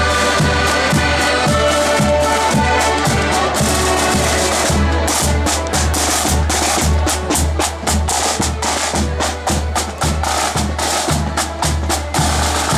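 Marching accordion band playing a tune over a steady bass drum beat of about two strokes a second. About four seconds in the accordions fall away and the snare drums carry on alone with rapid, dense strokes over the bass drum.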